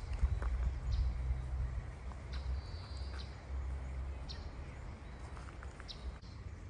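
Small birds chirping, with short high calls repeating every second or so, over a constant low rumble. A few crunching footsteps on gravel come in the first second or so.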